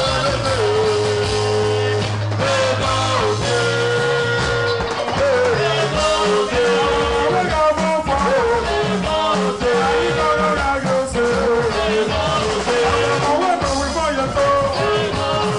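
Dance music with a singing voice over instruments and a bass line, playing loudly and without a break.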